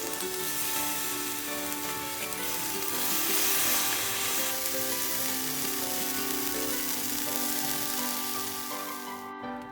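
Food sizzling hard in hot cookware, a steady hiss that cuts off suddenly near the end, under soft background music.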